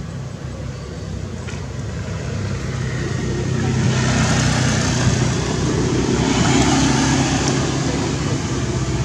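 A motor vehicle's engine running steadily, growing louder over the first four seconds and then holding.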